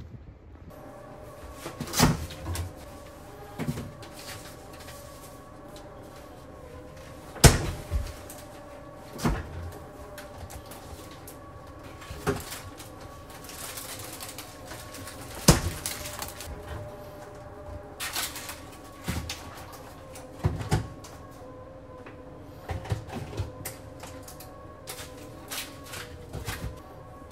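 Bottles and packages knocking and clinking as they are taken out of and moved around an open refrigerator, a dozen or so sharp knocks spread irregularly, over a steady hum of several pitches.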